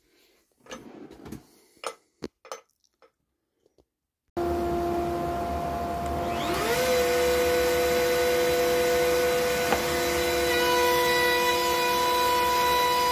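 A few light knocks and clicks as the wooden router-table box is handled into its shelf. Then, about four seconds in, a dust extractor starts running suddenly with a steady rushing hum, and about two seconds later the router motor spins up with a rising whine that settles into a steady high tone, both running on together.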